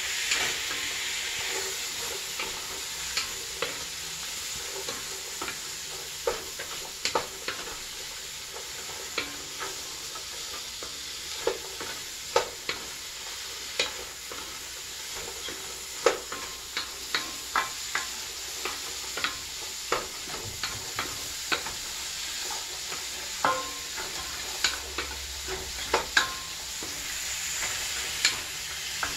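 Sliced carrots and mushrooms sizzling steadily in hot oil as they are stir-fried in a stainless steel pot, with frequent irregular sharp clicks of a wooden utensil knocking against the pot.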